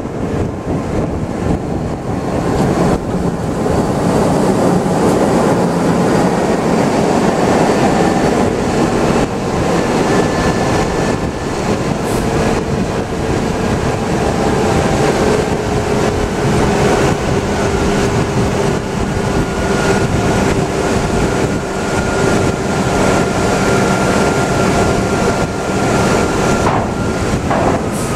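Steady heavy-vehicle rumble at low speed: a loaded logging truck's diesel engine running right alongside, with tyre and road noise. Faint steady whining tones sit over it through the middle.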